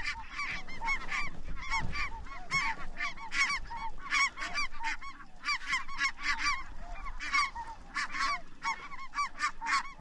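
A large flock of Ross's geese calling: many short, high-pitched honks overlapping one another, several a second, without a break.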